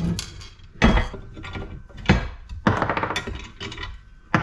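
Ratchet wrench working a bolt on a cast-aluminium light fixture, with about four sharp metal knocks and clanks in between.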